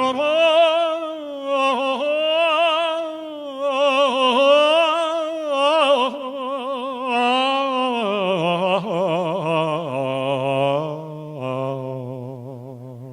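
A male singer sings a wordless, chant-like passage with heavy vibrato, holding and bending long notes, then drops to lower, steadier notes in the second half.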